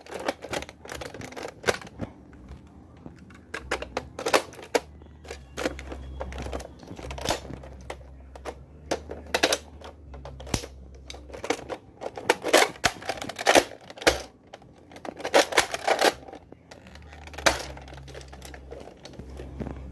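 Toy Nerf blaster being handled and worked with no darts loaded: irregular sharp plastic clicks and clacks, some in quick clusters.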